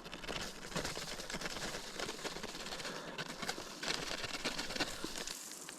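Plastic baggie crinkling and rustling, with many small ticks, as dry breading mix is added to it.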